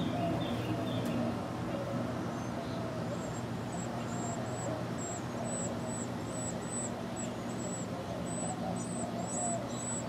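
Carolina wren nestlings begging for food with thin, very high peeps, starting a few seconds in and coming about one to two a second, more often near the end as the adult is at the nest. Under them a steady low background rumble.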